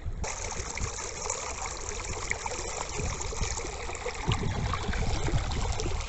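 Shallow stream running and splashing over stones and grass: a steady rush of water with small splashes throughout.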